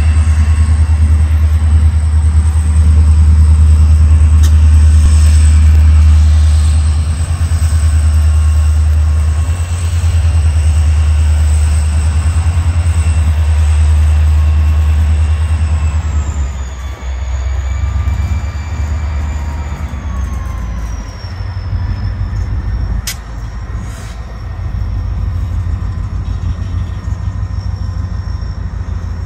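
Diesel-electric freight locomotive running close by: a deep, loud engine drone with a high whine above it that slides lower in pitch between about 16 and 21 seconds in, as the sound eases off. Two sharp knocks about a second apart come late on.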